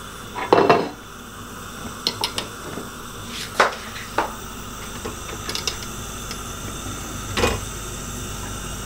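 Ceramic plate and bamboo steamer knocking and clinking as a plate of fish is lowered into the steamer basket with a metal plate gripper and the woven bamboo lid is set on. Beneath it, a steady background of water boiling in the pot under the steamer.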